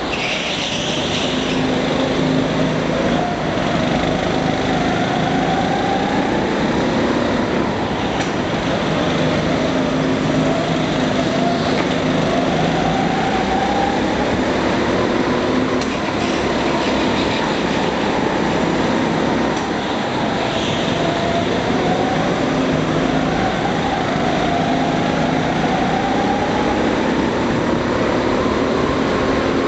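Go-kart engines running hard, their pitch climbing again and again as the karts accelerate out of corners, then dropping back as they brake into the next one.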